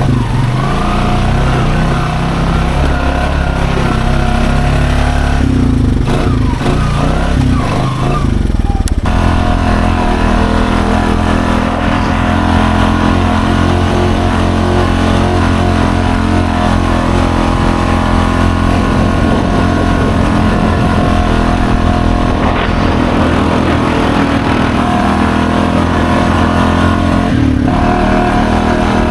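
Honda Foreman ATV engine working hard. For the first nine seconds or so the revs rise and fall unevenly, then it holds a steady high rev under load, with a brief dip near the end. The ATV is pushing through a mud hole in four-wheel drive.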